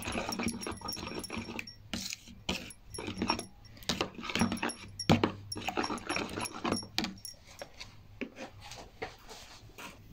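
A spoon stirring and scraping a thick yogurt spice paste in a plastic bowl, with many short clicks and scrapes.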